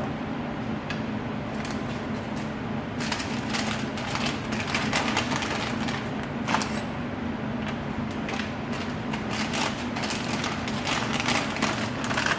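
Scattered light clicks and taps of hands working the crimp head of a vial crimper, with a vial in place and the machine not yet powered, over a steady low hum.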